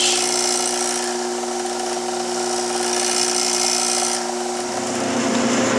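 Craftsman 6-inch bench grinder's electric motor running at a steady speed of about 3600 RPM: a steady hum with a high hiss. About four seconds in the hiss drops away, and the hum fades soon after.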